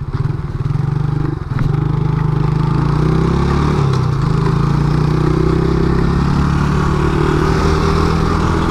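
Suzuki Smash 110's single-cylinder four-stroke engine picking up speed, with a brief dip about a second and a half in, then running steadily at road speed. Wind and road noise rise toward the end.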